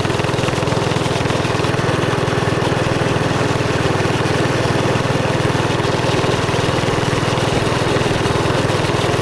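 Mini bike's small engine running steadily, close to the microphone.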